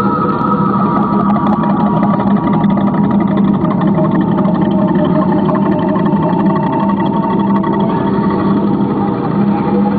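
Ambient electronic music from a live set: a dense, steady drone with a low held tone and several higher sustained tones.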